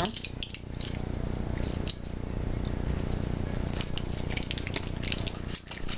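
Cough drop packaging crackling and clicking in the hands as a lozenge is taken out, with scattered crackles near the start, once about two seconds in, and a cluster in the last two seconds, over a steady low hum.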